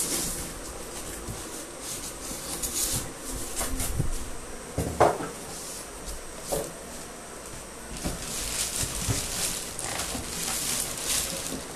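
Packaging being handled during the unboxing of a microwave oven: repeated rustling and scraping, with one sharp knock about five seconds in.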